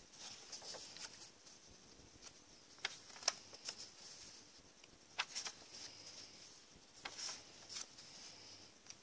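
Paper journal pages being turned and handled: faint rustles and flicks of paper, with a few sharper page flicks about three, five and seven seconds in.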